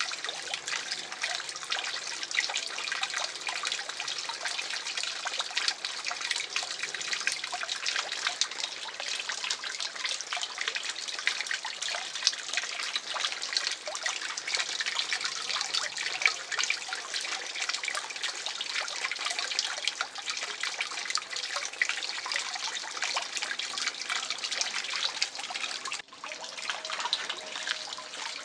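Garden fish pond water trickling and splashing steadily, thick with small drips and splashes, breaking off for an instant near the end and then going on.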